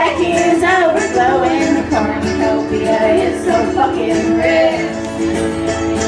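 Live music from a small band: plucked and strummed guitars with a woman singing, the words not made out, the sound as heard from the audience in a club room.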